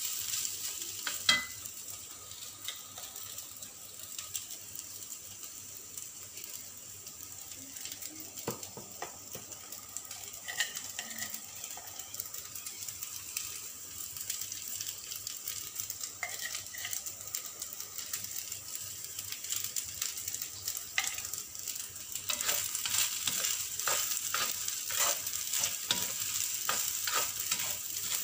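Fried rice sizzling in a stainless steel pan while a spoon stirs and scrapes it, with short clinks and scrapes of the spoon on the pan. The stirring gets busier and louder about three quarters of the way through.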